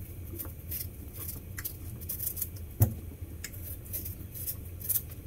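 Kitchen knife peeling the skin off a yellow yam: a run of short, irregular scraping cuts, with one sharper click about three seconds in, over a low steady hum.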